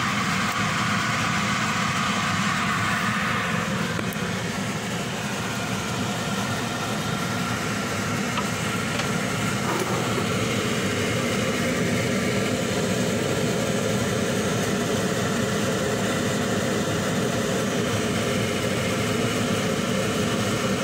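A steady mechanical running noise, like a motor or fan, even in loudness throughout, with a slight shift in its tone about four seconds in and again near ten seconds.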